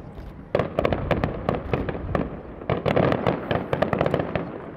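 Fireworks bursting in quick succession: a rapid string of sharp cracks and bangs that starts about half a second in, grows densest past the middle and dies away near the end.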